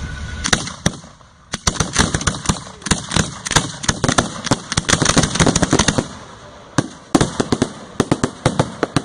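1.3G display fireworks going off in rapid strings of sharp bangs and crackles, with a short lull just after a second in and another around six seconds in.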